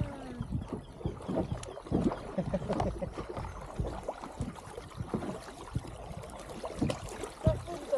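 Kayak paddles dipping into calm river water, with irregular splashes and drips as the paddlers stroke.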